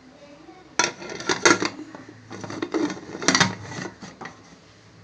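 Deepam pressure cooker's metal lid being fitted on and twisted shut: a series of metal clanks and scrapes over about three seconds, starting about a second in.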